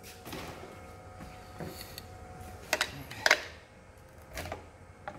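Hand tools and loose parts knocking and clinking against a stripped Ford Falcon inline-six engine block during teardown: a few short, sharp knocks, the loudest two about three seconds in.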